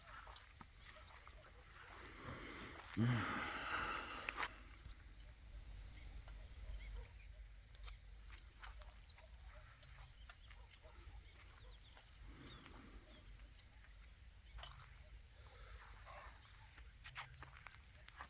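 Small birds chirping on and off, short high calls scattered throughout, with one louder, rougher sound lasting about a second and a half, starting about three seconds in.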